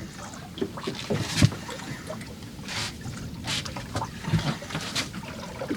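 Water slapping and splashing against a small boat's hull, with irregular knocks.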